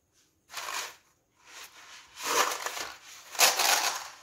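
Crinkling, crunching bursts from the dry spaghetti and its plastic package being handled, three times, the last two loudest.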